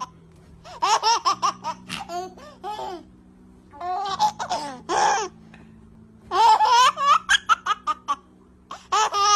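High-pitched human laughter in several bouts of short, rapid peals.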